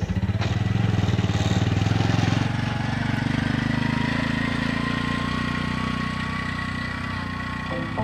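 Small engine of a three-wheeled mototaxi running with a rapid, even putter as it drives off along a dirt road, slowly fading over the second half.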